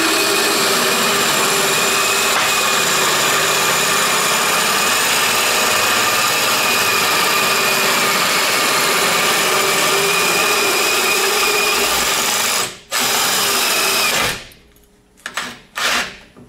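Hole saw on a tube notcher spinning and cutting into a 6061 aluminium tube: a loud, steady cutting noise with a constant whine. It dips for a moment about 13 seconds in, runs again briefly and stops about a second later, leaving a few light knocks.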